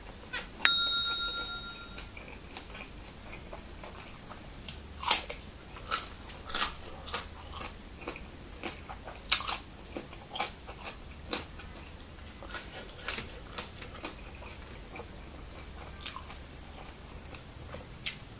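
Close-up chewing and crunching as a man eats raw vegetables and chillies with minced buffalo larb, with sharp bites and wet mouth clicks about once a second. A single bright ding rings out about a second in and fades away.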